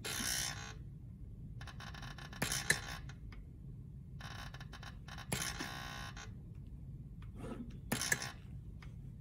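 SMC IO-Link demo panel cycling: a stepper-motor-driven electric actuator and a pneumatic cylinder working in turn. They give four short bursts of mechanical noise, each about a second long, with sharp clicks during the second, third and fourth bursts.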